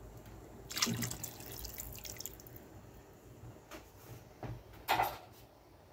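Cornstarch-and-water slurry poured from a glass into a pot of boiling soup: a few short splashes and drips, the clearest about a second in and another near the end.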